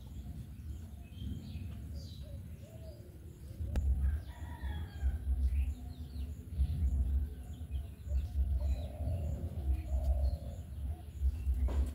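Domestic chickens calling, with a rooster crowing, over a low rumble on the microphone that grows louder from about four seconds in.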